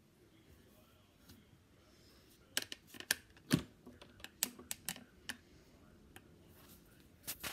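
Handling noise as a phone camera and its light are adjusted: a quick run of sharp clicks and knocks starting a couple of seconds in, the loudest a dull knock, with two more clicks near the end.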